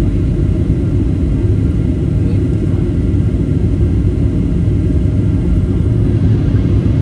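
Steady low rumble of cabin noise inside a Ryanair Boeing 737 on its descent: engine and airflow noise heard from a window seat.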